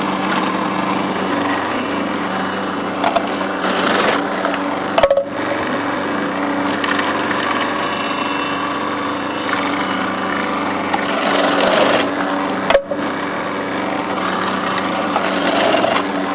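Magimix food processor running steadily with a constant motor hum, its slicing disc shredding red cabbage pushed down the feed tube, with two very brief breaks about five and thirteen seconds in.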